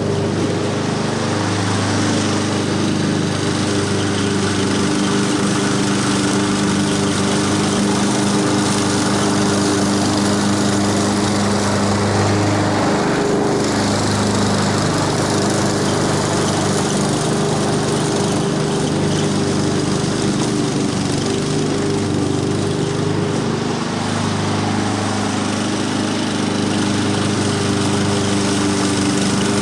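Walk-behind gas lawn mower running steadily while cutting grass, its small engine holding an even note.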